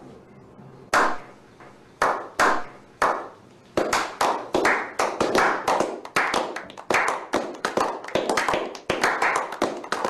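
A slow clap: single hand claps, a second or so apart, each with a short echo, that quicken about four seconds in as more people join, building into brisk overlapping clapping from a small group.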